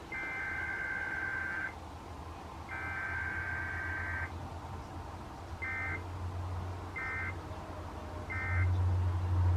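Emergency Alert System SAME digital data bursts over FM radio, a warbling two-tone screech. Two long header bursts about a second apart are followed by three short end-of-message bursts, and a low hum runs underneath.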